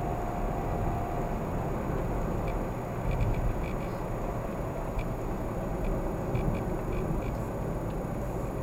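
Steady road noise of a car driving, heard inside the cabin: a continuous rumble of engine and tyres, with faint, irregular small clicks or rattles scattered through it.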